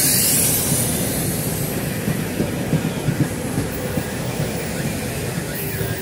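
SEPTA Silverliner IV electric multiple-unit cars passing close by at speed: a loud rush of air and wheels at first, easing into a steady rail rumble with sharp, irregular clacks from the wheels on the track.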